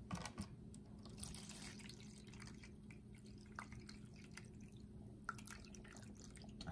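Water poured into a clear plastic tub, splashing and dripping faintly as it fills, with a few light clicks just after the start.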